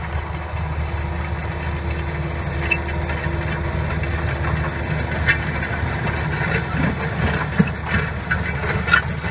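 John Deere tractor engine running steadily as it pulls a disc harrow through tilled soil, with a low, even hum. Scattered sharp clicks and rattles come in from about halfway through and grow more frequent.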